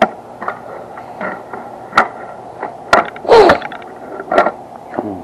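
Small plastic toy trains being handled and set into clear plastic storage cases: scattered plastic clicks and knocks, with one longer, louder scrape a little over three seconds in.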